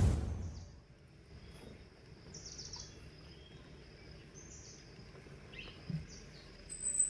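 Faint forest ambience: scattered short, high chirps and buzzy calls of small birds and insects, with a thin high whistle near the end. The tail of a crash-like sound effect dies away in the first second.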